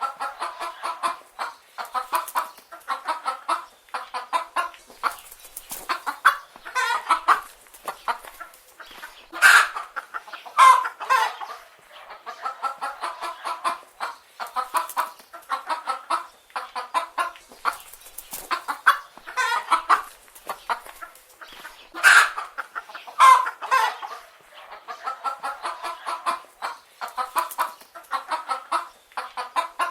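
A flock of hens clucking and murmuring continuously, with a few louder, sharper calls breaking in now and then.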